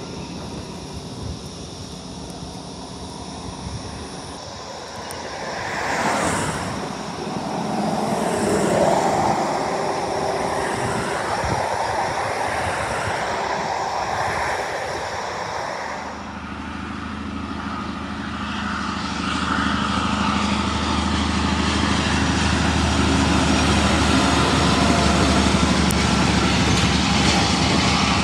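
XPT diesel power car passing, its engine and turbocharger whine mixed with wheel and rail noise, swelling loudest about six seconds in. About 16 s in the sound changes to a closer, steady low engine drone that grows louder toward the end as the power car runs past.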